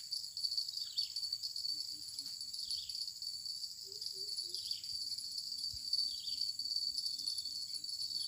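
Steady, high-pitched chorus of insects shrilling without a break. Faint short low notes repeat about three times a second from about two seconds in.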